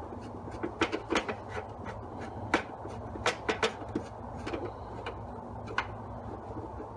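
Scattered sharp clicks and light taps of a Phillips screwdriver and screws, as the screws holding the dust shroud of a DeWalt DW734 planer are worked loose and lifted out. They come irregularly, in small clusters, over a faint steady hum.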